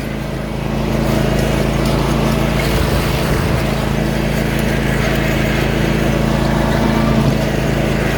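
Lawn mower engine running steadily, getting louder over the first second, then holding an even note.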